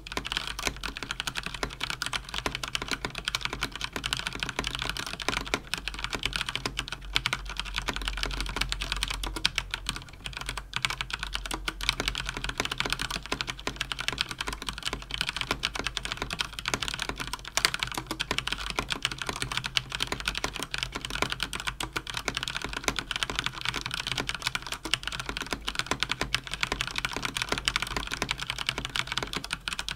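Fast continuous typing on a mechanical keyboard with Cherry MX Speed linear switches: a dense, unbroken stream of key clicks and bottoming-out clacks.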